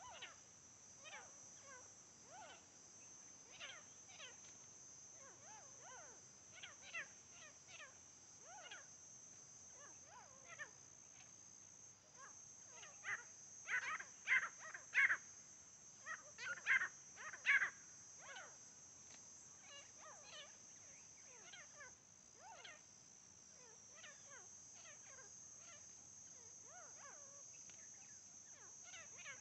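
Grey francolins calling: short, sharp, repeated notes throughout, with a louder run of about six calls midway. A steady high hiss runs underneath.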